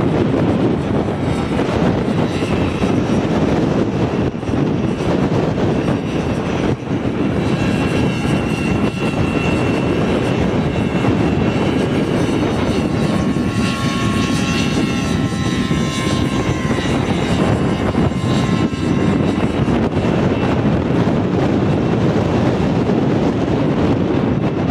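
Radio-controlled model helicopter in flight, its motor and rotor running steadily, with a high whine that rises and falls in pitch through the middle as it manoeuvres.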